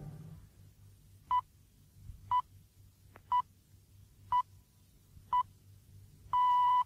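BBC Greenwich Time Signal, 'the pips': five short beeps one second apart and a longer sixth beep marking the exact hour, received over shortwave radio.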